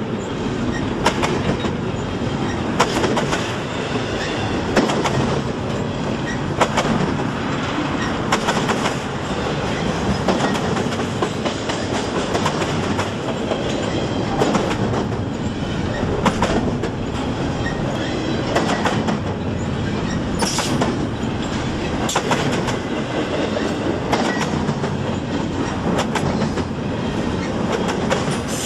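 CSX freight train cars rolling past with a steady rumble, their wheels clicking over rail joints every couple of seconds. A brief high wheel squeal comes about two-thirds of the way in.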